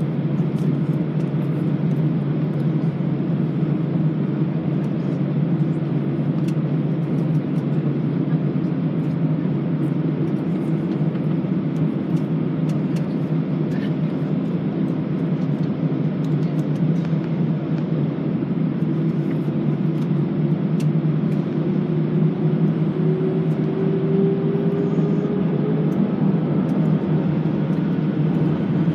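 Airbus A320 cabin noise before take-off: a steady low rumble and hum of the idling jet engines and cabin air, with light rattles. A faint tone rises slowly in pitch late on, and near the end the engines start to spool up.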